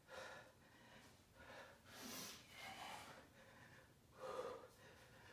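Faint, heavy breathing of a man exercising with a kettlebell: several short, breathy exhalations about a second apart.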